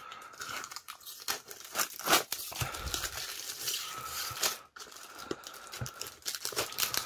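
Adhesive tape being peeled off a cardboard box: a run of crackling rips, the loudest about two seconds in, with a thin squeal coming and going under them.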